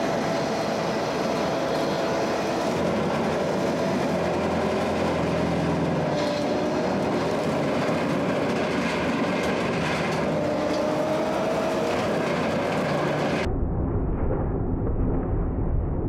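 Bobcat T770 skid steer's diesel engine and high-flow hydraulic direct-drive brush mower running at full speed, with a steady, slightly wavering whine from the spinning blade carrier. Near the end the sound abruptly turns to a deep, heavy rumble as the mower bites into a tree trunk and throws wood chips.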